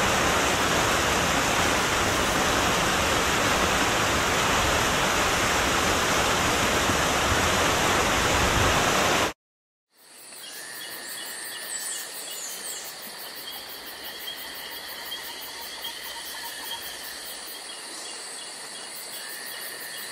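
A steady, even rushing hiss, loud and without any pitch, that cuts off suddenly about nine seconds in. After a short silent gap, a much quieter track of insects chirping in repeated trills follows.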